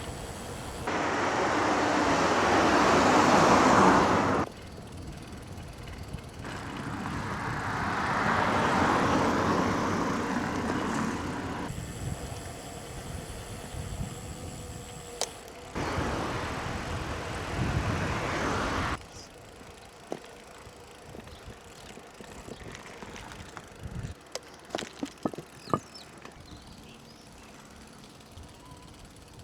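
Riding noise from a bicycle on a road, heard in several short cut sections: steady wind and road noise, and in the middle a vehicle's noise that swells and fades as it passes. In the last third it goes quieter, with scattered sharp clicks.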